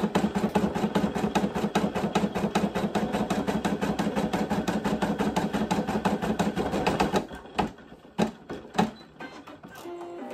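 Brother PE800 embroidery machine stitching at speed, its needle striking in a fast, even rhythm. About seven seconds in it slows to a few separate taps and goes quieter.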